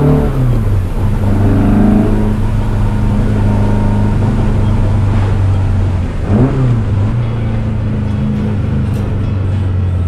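VW Beetle's 2.7-litre Type 4 air-cooled flat-four engine and exhaust heard from inside the cabin while driving. The revs fall right at the start and dip in a quick gear shift about six seconds in, otherwise holding a steady pitch.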